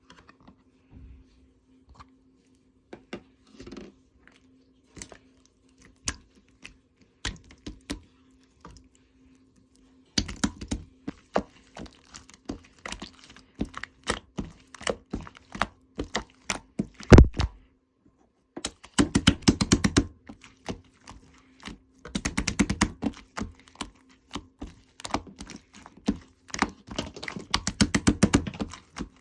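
Slime being squished and kneaded by hand, making sticky clicks and air-bubble pops: sparse at first, then dense crackling runs from about ten seconds in, with one heavier slap partway through.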